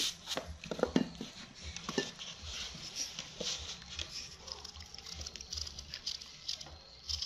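A small kitchen knife cutting and peeling an apple: soft, scattered clicks and scrapes, with a few sharper clicks in the first two seconds.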